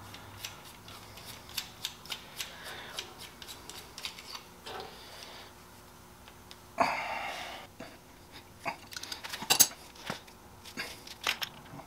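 Small clicks and ticks from hand-handling a compressor's air pressure regulator as its knob and housing are unscrewed and taken apart. There is a brief rasping scrape about seven seconds in, and a cluster of sharper clicks a couple of seconds later.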